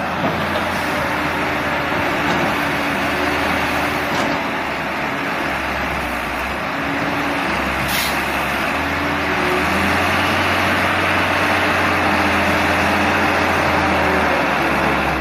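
John Deere 595D wheeled excavator's diesel engine running under working load as the machine swings and lowers its boom. The low engine note shifts up and down several times as the hydraulics are worked.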